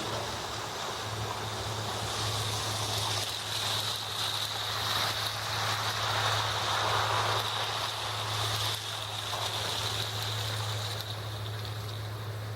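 Outdoor street ambience in a snowstorm: a steady wash of noise that swells about halfway through, over a constant low hum.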